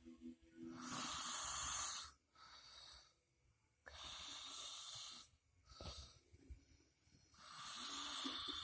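A sleeping person snoring: breathy snores about every three seconds, three in all, with quiet between them.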